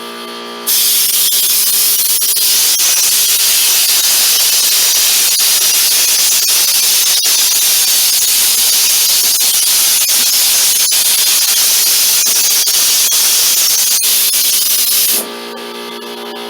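Gravity-fed texture hopper gun spraying ceiling texture mix with compressed air: a loud, steady hiss that starts about a second in and cuts off near the end. A steady machine hum with a fixed pitch is heard just before and after the spray.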